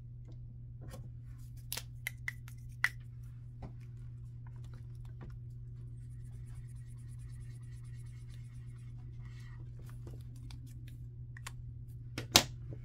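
Felt-tip marker scratching on paper as squares on a tracker are coloured in, over a steady low hum. There are a few light clicks in the first three seconds and one sharp click near the end.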